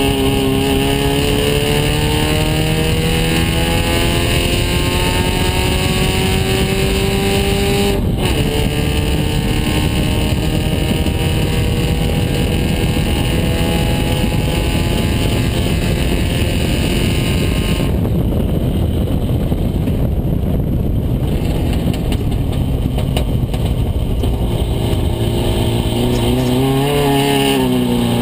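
Race car engine heard from its open cockpit, its pitch climbing steadily under acceleration for the first several seconds. The sound changes abruptly twice, and from midway on a rush of wind covers much of the engine. Near the end the engine note dips and rises again, as on a lift or shift.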